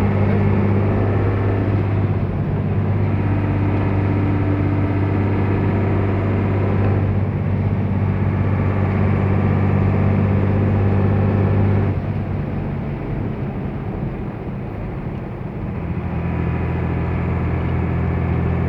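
A 1990 '1319' truck's diesel engine running hard under load, a loud steady drone. About twelve seconds in the note drops away and it goes quieter for a few seconds, then it settles into a steady note again near the end.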